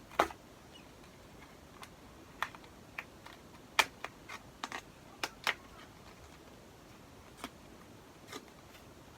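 Irregular small clicks and taps of a makeup palette and its packaging being handled, about a dozen scattered through, the sharpest near the start and just under four seconds in.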